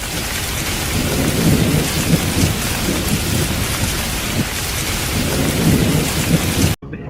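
Heavy rain pouring with rolling thunder rumbling beneath it, swelling twice. It cuts off abruptly near the end.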